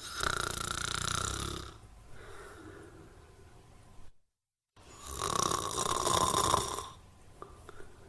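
A sleeper snoring: two loud snores about three and a half seconds apart, each followed by a quieter breath. A brief dead silence falls between the two.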